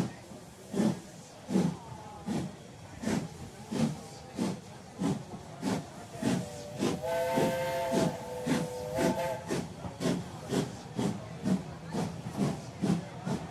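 Steam locomotive sound effect: exhaust chuffs in an even beat that quickens from a little over one to about two a second as the train gets under way. A steam whistle blows a steady chord for about two and a half seconds midway.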